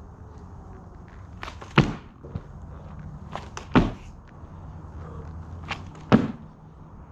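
Practice board slapping down onto a mat over gravel three times, about two seconds apart, as the rider lands hops and spins.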